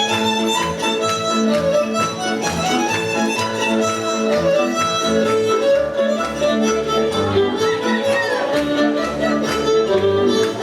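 Music led by a violin playing a melody, over a steady, rhythmic low accompaniment.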